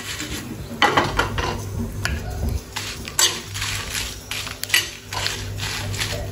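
Metal spoon stirring dry red chillies in a non-stick frying pan, scraping and clinking against the pan in irregular strokes with a few sharper clanks, as the chillies are dry-roasted.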